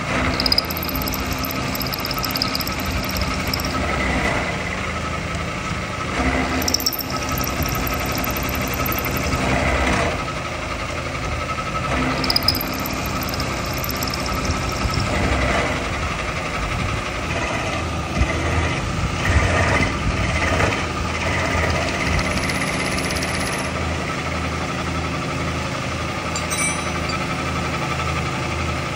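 A workshop power tool's motor running steadily with a constant hum, with irregular louder moments as it works the metal.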